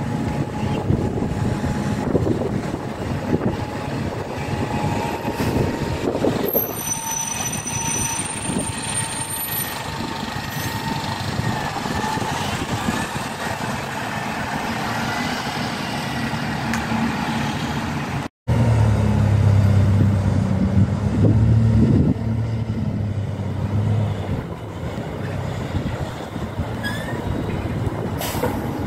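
Diesel single-decker buses running and pulling away. After a sudden break, a bus engine runs close by with a loud, steady low drone for several seconds, then eases off.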